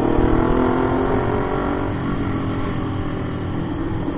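Motorcycle engine running while riding. Its note eases down slightly over the first couple of seconds, then holds steady over a low, noisy rumble.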